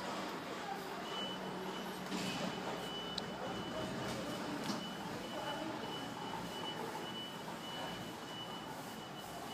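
A thin, steady high-pitched tone comes in about a second in and holds, over a constant outdoor background hiss.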